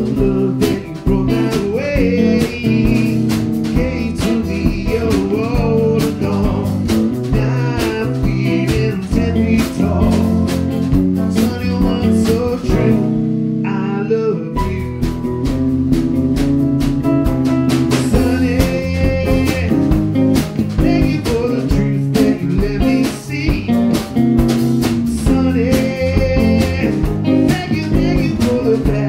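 Live blues band playing: electric guitar, bass guitar, drum kit and piano, with a man singing. About halfway the drums and bass drop out for a short break, then the full band comes back in.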